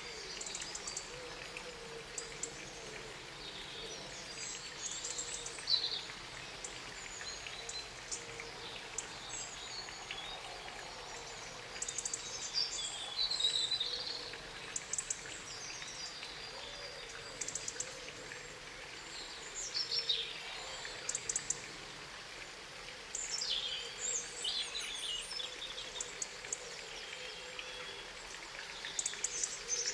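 Small birds chirping and trilling in several short bouts over a steady outdoor background hiss.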